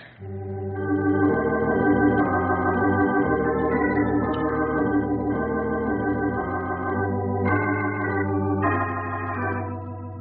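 Organ music bridge: a series of held organ chords that change every second or so, getting softer near the end.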